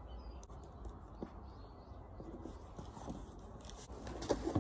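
Cardboard box being handled and opened: faint scrapes and light knocks, busier and louder near the end, over a steady low rumble.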